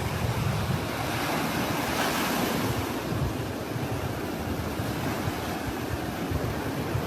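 Steady rushing noise with a low, uneven rumble, as from wind or surf.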